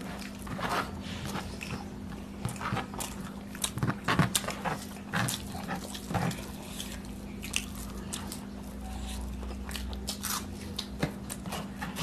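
Close-up eating sounds of two people eating rice and curry by hand: wet chewing and lip smacks with fingers working food on plates, heard as many short irregular clicks, busiest around the middle, over a steady low hum.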